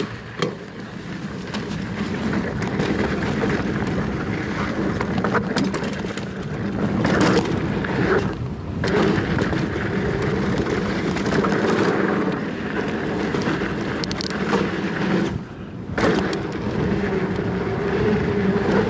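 Mountain bike riding fast down a dirt trail: the plus-size knobby tyres roll and crunch over packed dirt, with wind rushing on the camera microphone. The noise dips briefly twice, about halfway through and again about three-quarters of the way.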